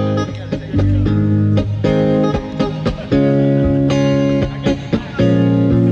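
Instrumental music with guitar and bass playing held chords, about one a second with short breaks between them, without vocals.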